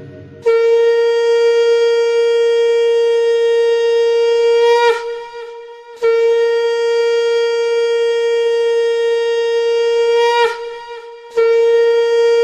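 Conch shell (shankha) blown in three long, steady blasts, each about four seconds long and each breaking off with a brief wobble in pitch.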